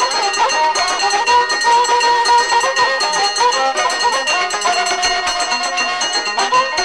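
Traditional Amazigh rrways music in an instrumental passage: a ribab fiddle plays a winding, gliding melody over plucked strings and a steady percussion beat.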